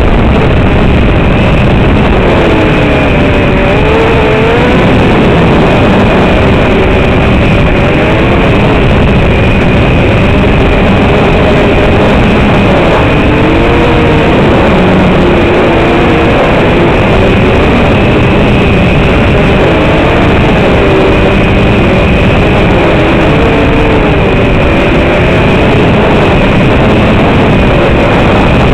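LKTR 120 FPV racing quadcopter's brushless motors and propellers whining, the pitch swooping up and down every second or two as the throttle changes, over a heavy steady hiss with a thin steady high tone.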